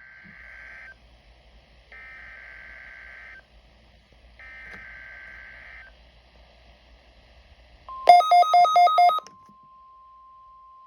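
NOAA Weather Radio SAME alert header heard through a Midland WR-120EZ weather radio: three bursts of warbling data tones, about a second each, with short gaps between them. About eight seconds in, the radio gives a loud, rapid run of beeps, its alert for the Required Weekly Test, and a steady single tone starts with it and holds.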